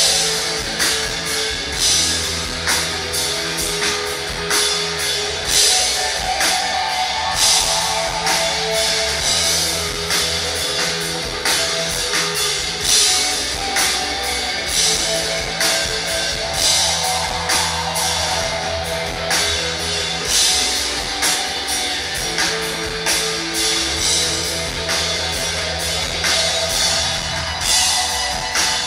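Rock band playing live without vocals: electric guitars, bass guitar and drum kit keeping a steady beat.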